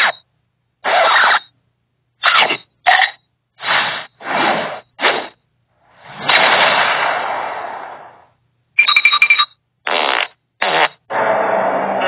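A string of about ten separate short sound-effect clips of the kind used in YouTube edits, each cut off by silence. One clip lasts about two seconds and fades out. Music starts near the end.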